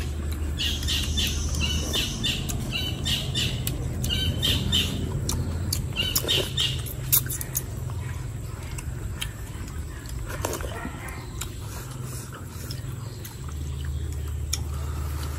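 Birds calling: short, high, repeated calls in clusters through about the first seven seconds, sparser after that, over a steady low hum.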